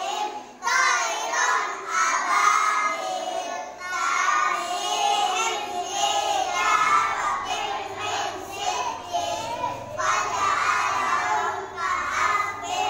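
Young children's voices reciting Arabic prayer verses aloud together in a sing-song chant, continuing with hardly a pause.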